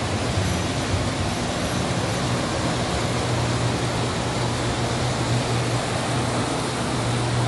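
Standard gauge model trains running around the layout: a steady rumble of wheels on the track with a low, even hum.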